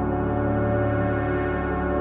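Ambient background music: a steady drone of many held tones with no beat.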